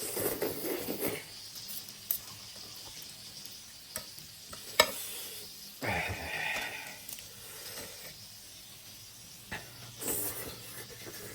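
Close-miked eating sounds: short bursts of wet mouth noise from eating a noodle meal, with a few sharp clicks in between, the loudest about five seconds in.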